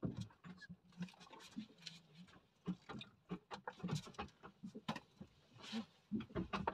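Light, irregular tapping and knocking of handling noise aboard a small fishing boat while a freshly caught small fish is taken in hand, with a brief rustle about five and a half seconds in.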